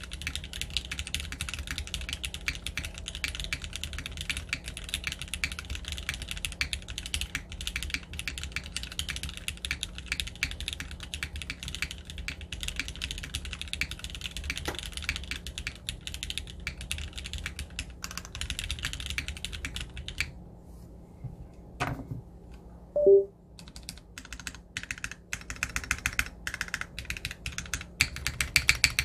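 Typing on a TYP60SL custom 60% mechanical keyboard with Gateron X linear switches on a carbon-fibre plate and GMK Classic ABS keycaps: quick continuous keystrokes with a plasticky clack. The typing stops about two-thirds of the way through, a single sharp knock comes a couple of seconds later, and then the typing resumes with louder, evenly spaced strokes near the end.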